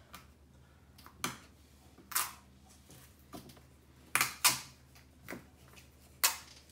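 Plastic baby powder bottles being squeezed, letting out several short, sharp puffs of air and powder at uneven intervals.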